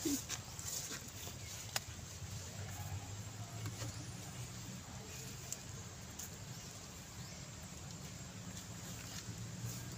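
Steady, low outdoor background hum with a few faint clicks and ticks, one sharper click a couple of seconds in; no clear animal calls.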